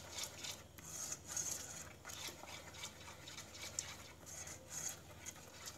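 Wire whisk stirring thick, freshly cooked cocoa pudding in an enamel pot: a faint, uneven run of swishing and scraping strokes as the pudding is whisked to let off its first heat.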